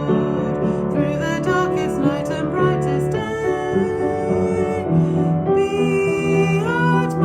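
Hymn with piano accompaniment and a voice singing the melody, in slow held notes.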